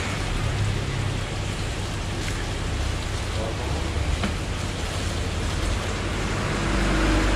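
Plastic bags crinkling and rustling as a black bag around a bagged live fish is unwrapped, over a steady low background rumble that grows a little louder near the end.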